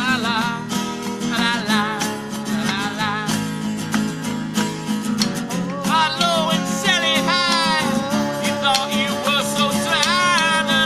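Music led by acoustic guitar, with a wavering melody line above held notes.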